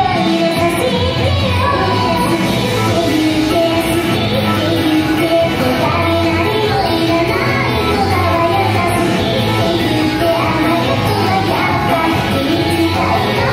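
Recorded pop song playing loudly, a sung vocal line over a steady beat and bass.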